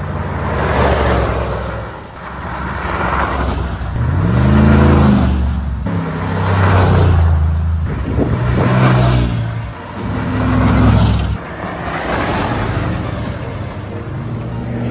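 Ford F-150 Raptor pickup trucks driving hard along a dirt road, engines revving and passing by. The sound rises and fades in repeated swells about every two seconds.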